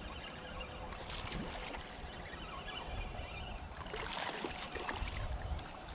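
Creek water running, with a low wind rumble on the microphone and a few faint clicks.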